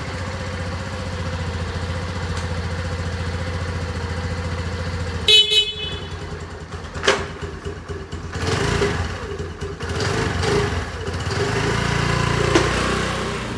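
Honda Navi 110's small single-cylinder four-stroke engine idling steadily just after a cold first start. About five seconds in, the bike's horn sounds once, briefly. From about eight seconds the throttle is blipped several times, the engine revving up and dropping back each time.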